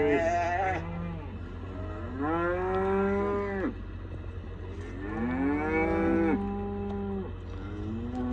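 Cattle bawling: a string of long moos that rise and then fall in pitch, one every two to three seconds, two voices overlapping at times.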